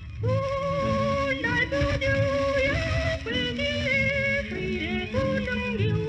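A woman sings high, long held notes with a wide vibrato over a lower instrumental accompaniment, on a 1930s Taiwanese pop record transferred from a 78 rpm shellac disc.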